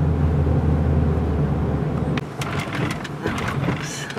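Road noise inside a moving car's cabin: a steady low drone from the engine and tyres that drops off about halfway through, followed by a run of light knocks.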